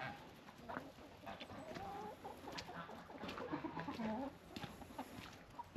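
A flock of chickens clucking, with scattered short calls overlapping one another.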